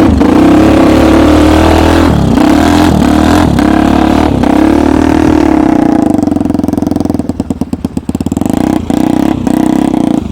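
Homemade snowmobile's small engine running at steady high revs, with a few sharp knocks in the first half. About seven seconds in it eases off to a lower, pulsing putter.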